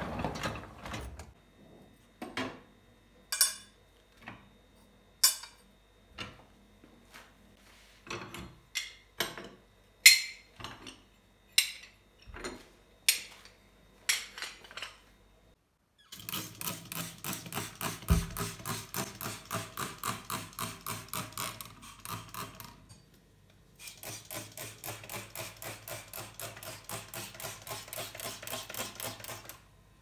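Dishes and utensils set into a dishwasher's plastic cutlery basket and wire rack, giving separate clinks and knocks. After that, the rhythmic rubbing of a soapy black glass gas hob being scrubbed by hand, about three strokes a second, with a short pause in the middle.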